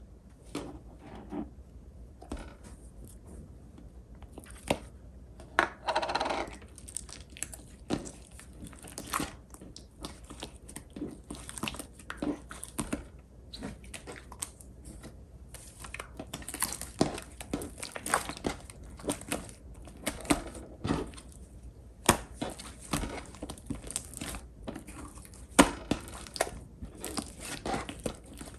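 Clear pink slime being squished, pressed and stretched by hand, giving irregular sticky clicks and pops, with a longer crackling squish about six seconds in.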